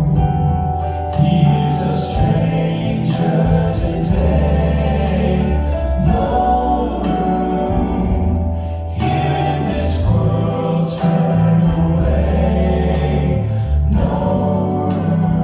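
A group of singers performing a song over instrumental backing with a bass line, at a sound check.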